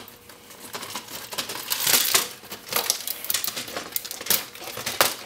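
Circuit board of a Cisco desk phone being worked loose and lifted out of its plastic housing: a run of scraping and rattling about two seconds in, with sharp plastic clicks scattered through.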